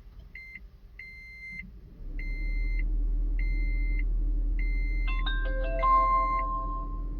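Car's electronic warning chime beeping about once a second, with the engine starting about two seconds in and running at a steady idle. Near the end a short electronic start-up jingle of several stepped notes plays as the newly installed mirror dash cam powers on.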